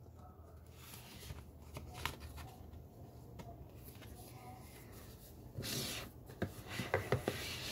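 A CD case and its paper booklet being handled: soft rustling and small clicks, with a louder rustle about six seconds in and a few sharp clicks near the end.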